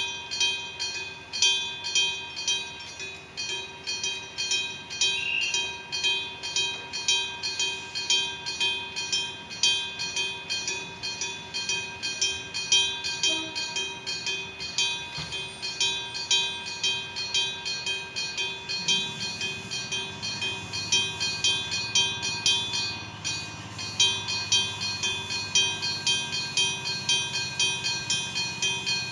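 Japanese level crossing alarm of the bell-striking type (dashō-shiki), its mechanical bell struck over and over, roughly two strikes a second, each ringing on. About two-thirds of the way through, a low hum from a train joins in.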